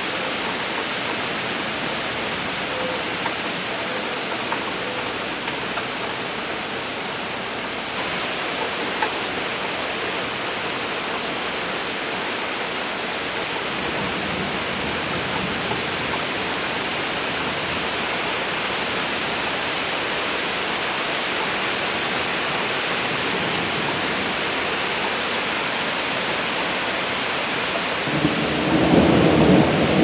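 Steady heavy rain falling, an even hiss, with a rumble of thunder swelling up near the end.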